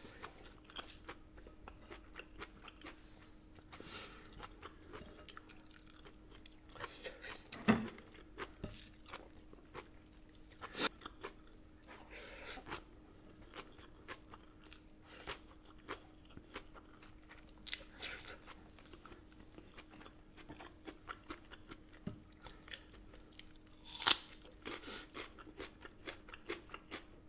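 Close-miked chewing and crunching of food eaten by hand, with many small irregular mouth clicks and a few louder ones, the loudest about eight seconds in and again near the end.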